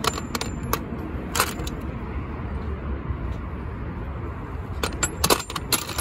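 Loose metal hand tools clinking together as they are handled and sorted through. There are a few separate clinks at first, then a quick run of clinks near the end, over a steady low rumble.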